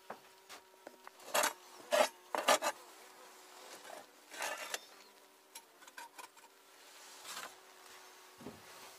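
Metal hive tool scraping dead bees and debris off the wooden hive floor and walls in several short strokes, clearing out the winter die-off. A faint steady buzz of bees runs under it.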